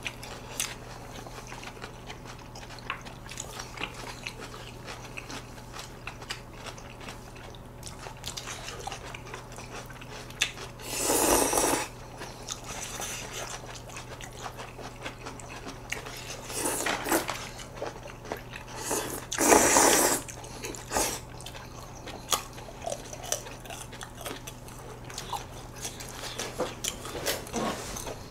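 Close-miked eating of noodles and fried dishes: chewing, with small clicks of chopsticks against plates. There are three louder, noisy bursts of eating spread through the middle.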